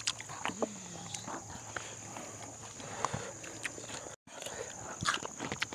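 People eating with their hands: chewing and mouth sounds, heard as many short, irregular clicks and smacks. The sound cuts out completely for a moment about four seconds in.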